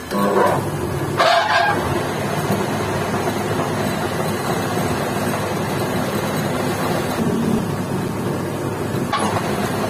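A metal lathe running with a steady machine drone, with a few short louder scraping bursts about a second in and again near the end.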